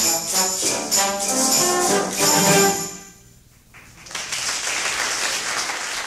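Trombone ensemble playing a brass passage that ends on a final chord about three seconds in, leaving a short hall reverberation. About a second later, audience applause starts and carries on.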